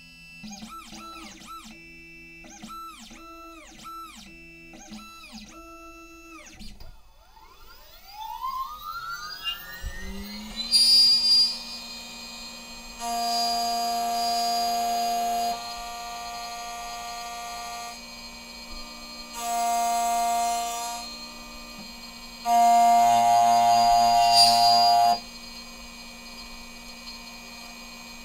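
Xhorse Condor Dolphin XP-005 key cutting machine running its cutting calibration on a key blank. For the first seven seconds its stepper motors whine in short rising-and-falling sweeps as the carriage moves into position; then the cutter spindle spins up with a rising whine and runs steadily, with four louder stretches as the cutter cuts into the blank, the last two the longest.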